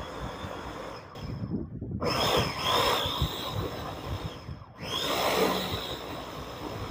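Electric mini food chopper grinding a spice paste of chillies, shallots, garlic and candlenuts, run in pulses. The motor stops briefly twice and whines back up to speed each time.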